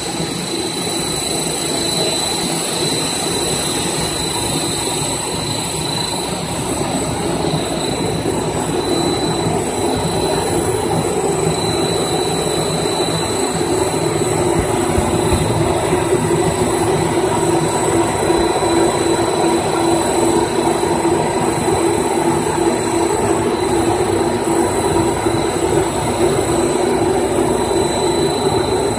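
HDPE geomembrane extrusion and laminating line running: steady mechanical noise with several constant high whines over it, growing a little louder about halfway through.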